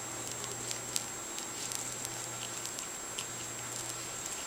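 A hand rubbing and wrestling with a cat's fur: soft rustling with many small, irregular crackling clicks, which sound staticky.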